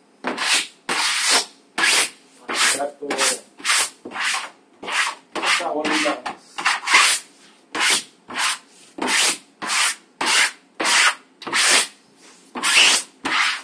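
A sponge being rubbed back and forth over freshly hung wallpaper, wiping and smoothing it in quick strokes, about two a second.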